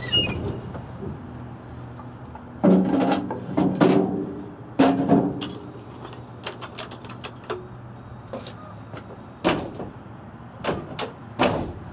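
A pickup truck door being worked open and shut, with clunks of the door and clicks of its latch, several loud knocks with a brief metallic ring, as the door's fit is checked after bending the hinges to lift it.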